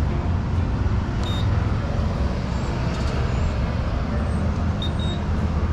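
Steady low rumble of road traffic and running vehicle engines, with two brief high-pitched beeps or chirps about a second in and near the end.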